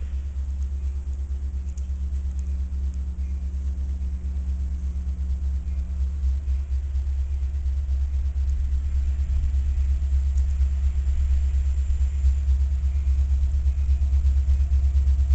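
Diesel locomotives of an approaching train heard from a distance: a low engine rumble with a steady hum above it, growing steadily louder over the second half.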